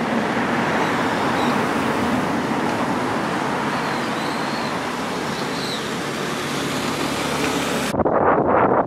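Steady road traffic noise with a few faint bird chirps. Near the end it changes abruptly to a duller, rustling sound.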